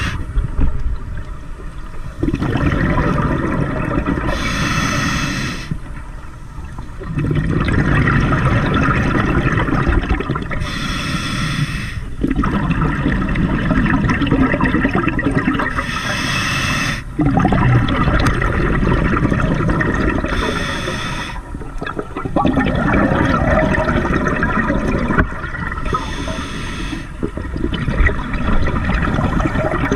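Scuba diver breathing through a regulator underwater: a short hissing inhale about every five seconds, each followed by a longer rush of bubbling exhaled air.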